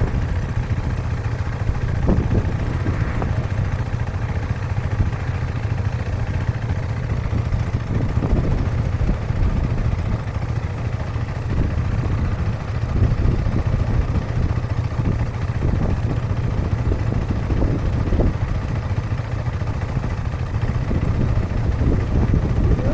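Motorcycle engine idling steadily at a distance, a constant low hum with no revving.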